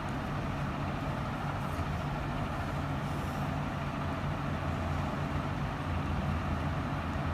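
Steady low mechanical drone, even and unbroken.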